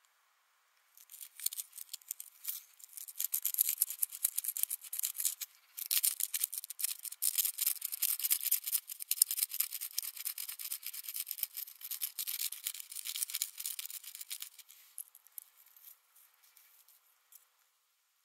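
A beaver incisor being ground back and forth against a sandy stone to sharpen its edge: a fast, gritty scraping that starts about a second in, breaks off briefly near the middle, and fades to a few faint scrapes near the end.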